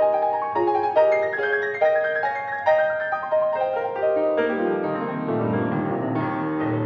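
Grand piano playing a chamber-music passage of separate struck notes and chords in the middle register. About four and a half seconds in, deeper bass notes join and the sound thickens.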